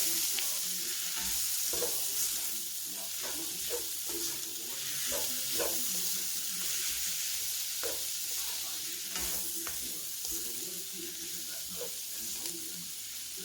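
Stir-fry sizzling steadily in a hot pan while being stirred, with scattered scrapes and taps of the utensil against the pan.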